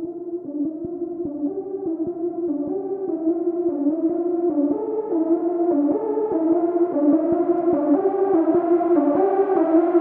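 Early hardstyle music in a breakdown: a repeating synth riff with a filter slowly opening and the level building, with no heavy kick drum, only faint ticks.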